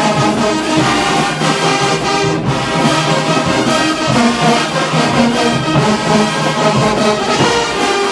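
Marching band playing a brass-heavy tune, with trombones and trumpets carrying sustained chords over a steady drum beat.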